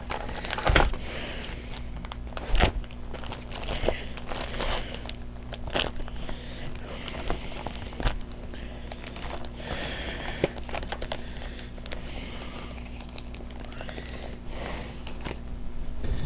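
Crinkling and rustling of a foil Pokémon booster pack wrapper and trading cards being handled, with scattered sharp clicks and crackles, over a steady low hum.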